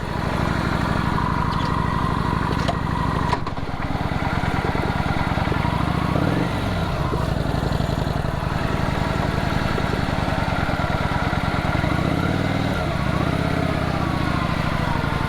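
Motorcycle engine running, its revs dipping and rising again twice.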